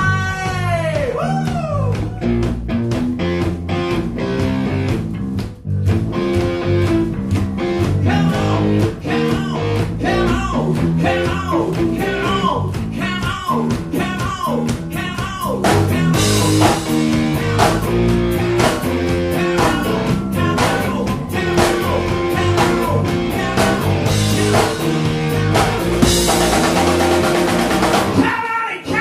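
A rock band playing live: drum kit, bass and electric guitar, the guitar bending notes up and down. The cymbals grow louder about halfway through.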